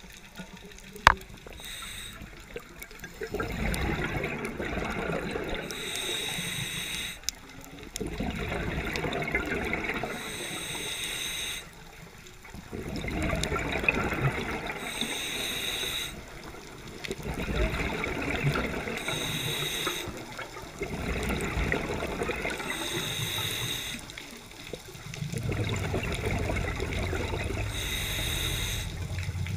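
Scuba regulator breathing heard underwater: a steady cycle of exhaled bubbles rushing out for a few seconds, then a short hissing inhalation through the demand valve, about six breaths in all. A single sharp click comes about a second in.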